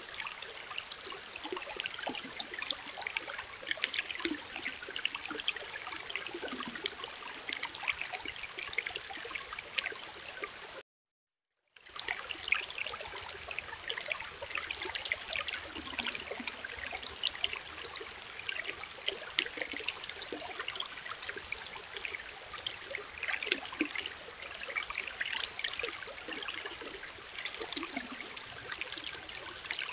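Shallow stream running over rocks and boulders, a steady babbling and trickling. It drops out completely for about a second near the middle, then resumes unchanged.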